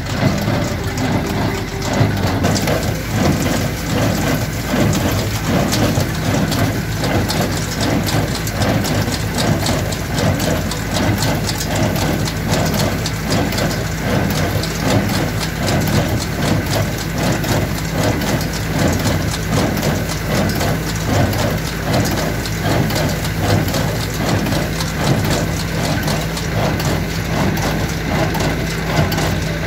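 Claas Markant 40 small square baler working in hay: a dense, steady mechanical clatter from the pickup and baling mechanism, over a tractor engine running steadily under load.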